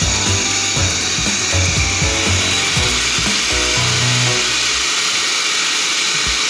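Pet grooming blow dryer running steadily, blowing air through a long-haired dog's coat, with background music.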